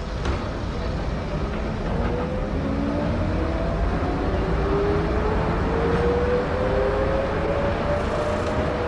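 Diesel multiple unit heard from its driving cab, its engine and transmission whining higher and higher as the train picks up speed over a steady low running rumble.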